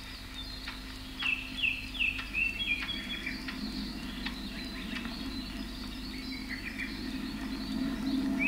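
Jungle ambience from a film soundtrack played back off a screen: a bird gives a run of short falling chirps about a second in, over scattered insect clicks and a steady low hum.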